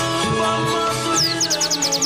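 Instrumental music with plucked-string melody. About a second in, a white-eye (pleci) starts singing over it: fast, high chirping trills of short repeated notes and quick sweeps.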